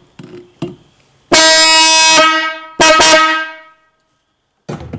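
The biggest of a 1947 International KB-5 truck's electric horns, run off a 12-volt battery, sounds two loud blasts: the first lasts about a second and fades away, the second is shorter and stutters briefly at its start. A few short clicks come just before.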